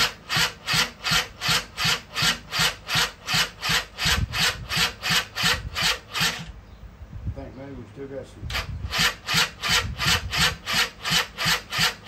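Polaris Scrambler 50's small two-stroke engine turning over on its electric starter, chuffing about three times a second without catching. It cranks in two goes with a short pause between. The owner suspects there may still be too much oil in the engine.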